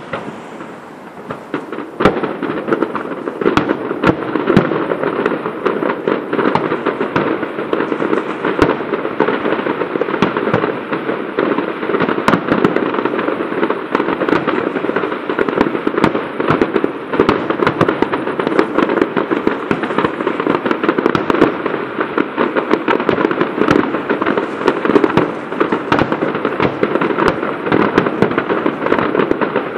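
Fireworks display: a dense, continuous barrage of shell bangs and crackling, quieter for the first couple of seconds and then packed with overlapping bursts.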